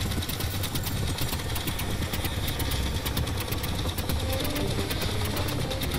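An engine running steadily with a fast, even rattle over a low rumble. Faint music comes in about four seconds in.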